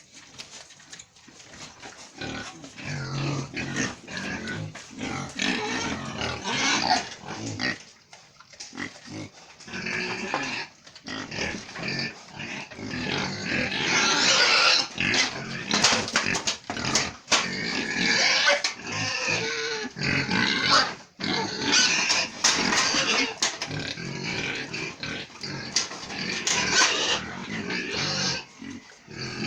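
Pigs in a pen grunting and squealing, a dense continuous din that grows louder about halfway through.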